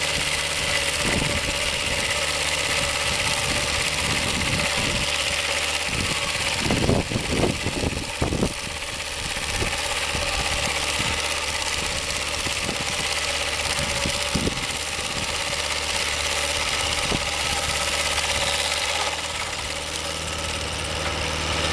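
Portable band sawmill's engine running steadily as the saw head cuts along a log, with a few thumps about seven to eight seconds in. The sound eases off slightly near the end, as the head reaches the end of the log.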